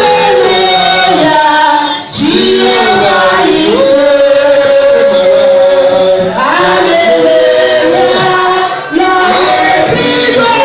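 Church choir and congregation, men and women together, singing a gospel worship song with instrumental backing, in long held phrases with short breaks between lines.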